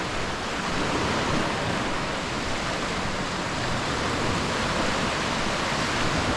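Steady rushing noise of surf washing along a sandy beach, even throughout with no distinct breaks.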